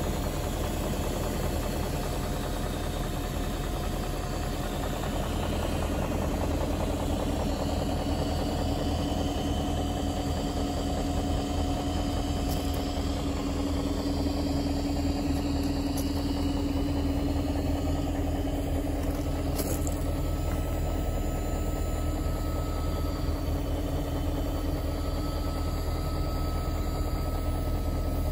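BMW E38 740i's 4.4-litre V8 idling steadily while it warms up after a cold start.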